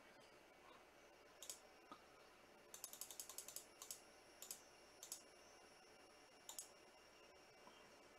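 Faint keystrokes on a computer keyboard: a quick run of about ten keys about three seconds in, with scattered single clicks before and after.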